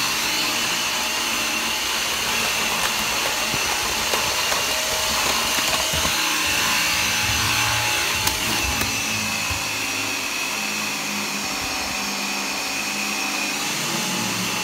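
G-Tech AirRam 2 cordless upright vacuum running steadily, with a constant high whine, as it is pushed across the floor; a few light knocks.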